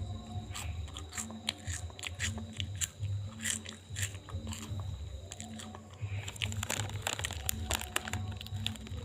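Background music with a steady low beat, over many short, crisp clicks and crackles.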